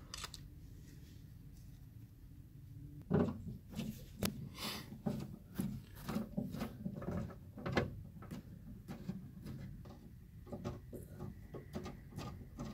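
Hands working a car door speaker and its 3D-printed plastic adapter ring while threading a bolt: irregular clicks, knocks and rubbing that start about three seconds in after a quiet stretch.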